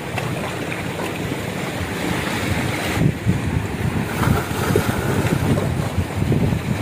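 Sea waves washing against shoreline rocks, with wind buffeting the microphone in gusts that get stronger from about three seconds in.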